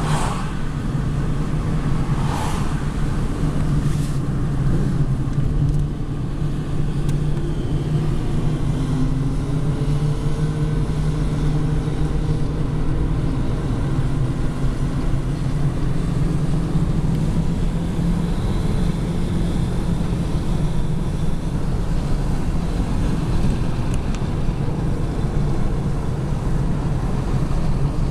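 Steady engine hum and tyre and road noise inside a moving car's cabin, with a couple of brief whooshes near the start as oncoming cars pass.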